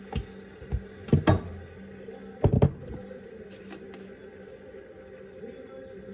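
A few hard knocks and clatters of a container and utensils being set down on a countertop, the loudest a quick cluster about two and a half seconds in, over a steady low hum.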